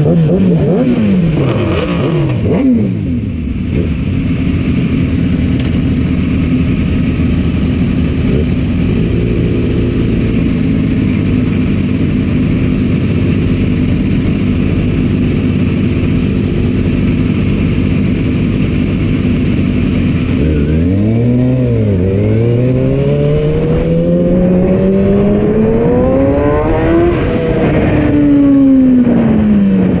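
Sport motorcycle engine, its pitch swinging briefly at first, then idling steadily. About two-thirds of the way in it revs up as the bike pulls away, rising with a short dip, climbing to a peak and then falling near the end.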